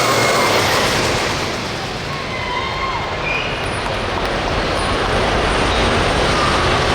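Hot Farm class pulling tractor's turbocharged diesel engine running loud and steady under load, dipping slightly about two seconds in.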